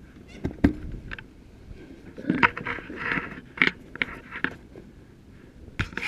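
Two sharp knocks, then a run of short scraping and rustling handling noises.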